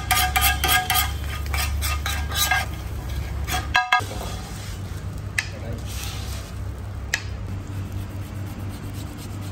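Metal spatula scraping and clattering on a large flat tawa griddle, with quick ringing metallic strikes for the first couple of seconds and again briefly just before a sudden cut. After that there are only a few light clinks over a steady low hum.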